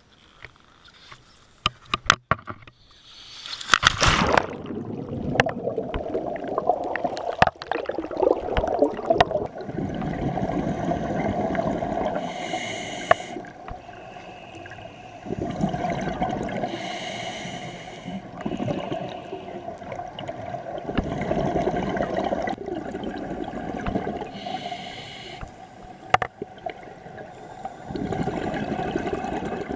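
A diver drops off the side of a boat into the water with a loud splash about four seconds in. Then comes scuba breathing heard underwater: a short hiss from the regulator on each inhalation, followed by gurgling exhaust bubbles, about one breath every four to five seconds.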